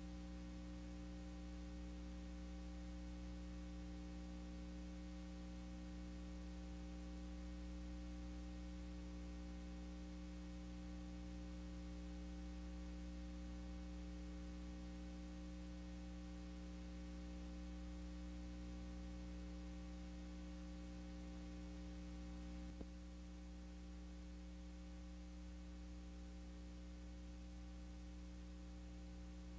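Steady electrical mains hum with a faint hiss under it, the background of an old U-matic videotape soundtrack with no programme sound. A small click a little over three-quarters of the way through, after which it is slightly quieter.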